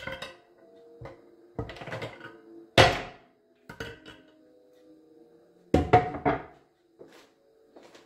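A hard plastic bonbon mould is knocked against a stone slab and the chocolate bonbons clatter out onto the stone. There are a few separate sharp knocks, the loudest about three seconds in, and then a quick run of three or four knocks about six seconds in.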